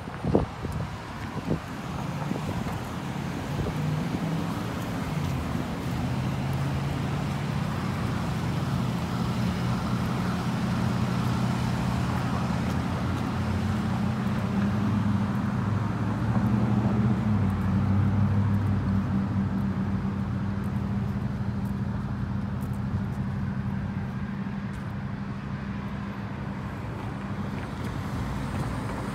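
Road traffic: vehicle engines running with a steady low hum that shifts in pitch a few times, over general traffic noise. A couple of sharp knocks sound at the very start.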